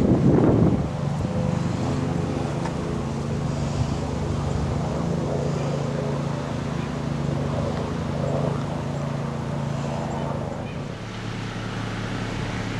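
Strong wind gusting across the microphone for about the first second. Then a steady low mechanical hum runs under lighter wind noise and fades near the end.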